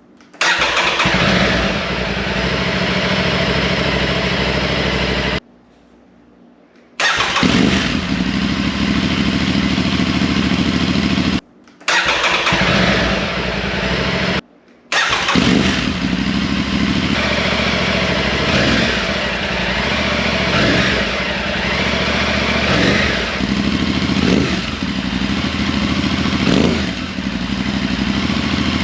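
Aprilia Tuareg 660's parallel-twin engine running loud through a freshly fitted Akrapovic full exhaust system, idling and revving. The sound is cut short three times by abrupt brief drops to quiet, and in the second half it rises and falls in a series of short throttle blips.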